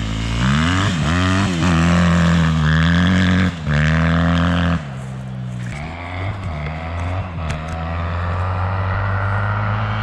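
2009 Yamaha WR250R's 250 cc single-cylinder four-stroke engine through an Akrapovič exhaust, being revved. The revs rise and hold high for a few seconds with a brief cut, then drop back about halfway through to a lower, uneven idle with a couple of short blips.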